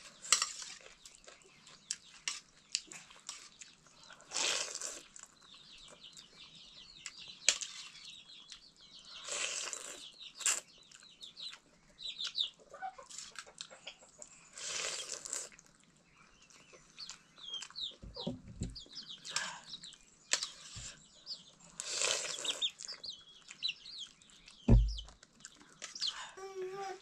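Birds calling in short clucks and chirps, among scattered short noises and two dull thumps in the second half.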